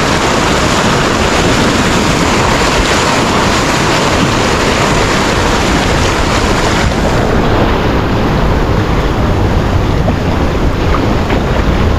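High-tide surf rushing in and washing around posts and over the ground, a loud, steady churning of water, with wind buffeting the microphone.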